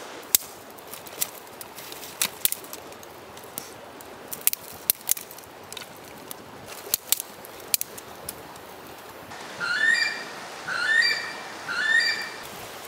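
Twigs and kindling in a newly lit campfire crackling, with sharp pops scattered irregularly. Near the end a bird calls three times, about a second apart.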